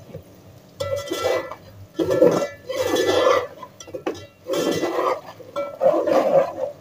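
A metal spoon stirring and scraping a wet masala around a metal cooking pot, in four bursts of scraping.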